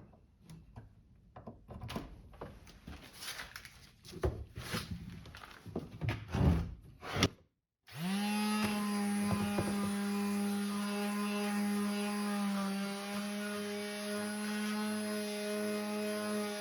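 Wood knocks and clatter as the board and sander are handled, then, about eight seconds in, an electric sander starts up and runs with a steady hum, dipping slightly in pitch about twelve seconds in.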